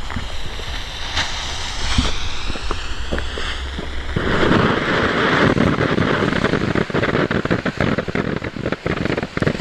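Weco Laser brilliant fountain battery: the lit fuse hisses, and about four seconds in the fountain catches with a loud, steady hiss and crackling as it sprays coloured stars.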